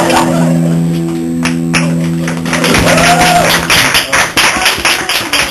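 Guitar music: a chord held and ringing for the first few seconds, then a run of quick, sharp strummed strokes near the end.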